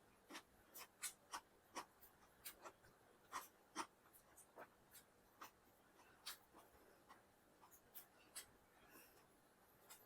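Close-up eating sounds: soft, irregular mouth clicks and smacks of chewing biryani, about two or three a second.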